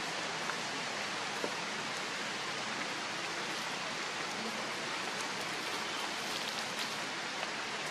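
A steady, even hiss of outdoor background noise, with a few faint ticks scattered through it.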